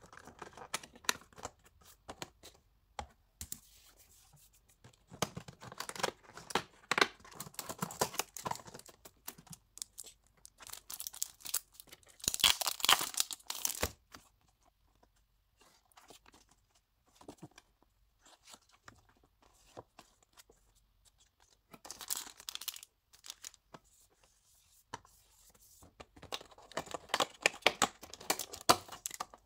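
Cardboard doors of a calendar box being pushed out and torn open, and the paper cards and plastic-wrapped items inside rustling and crinkling as they are handled. It comes in about four bursts with quiet gaps between, the loudest about halfway through.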